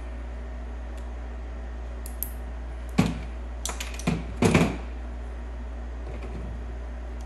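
Steel pliers and small metal pieces knocking and clinking on a tabletop as the pliers are put down after pulling nickel strips off lithium-ion cells. There is a sharp click about three seconds in, then a quick run of knocks a second or so later.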